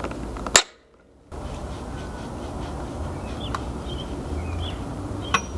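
Steady background noise with a few faint bird chirps. A sharp click about half a second in is followed by a brief dropout to near silence, and another click comes near the end.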